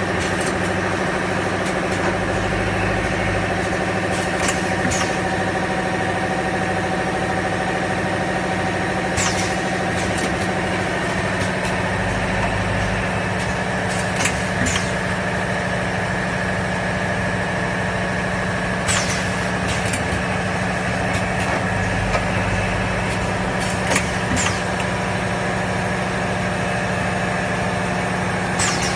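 Automatic air-blowing bottle rinsing machine running with a steady motor hum, broken by short hissing blasts of compressed air about every five seconds, often two close together.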